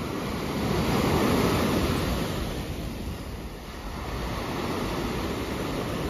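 Black Sea surf breaking and washing up a sandy beach in a steady rush of foam, swelling louder about a second in, easing off around the middle and building again toward the end.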